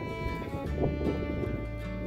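Background music of held notes on bowed strings, violin-like, with a short noisy burst a little under a second in.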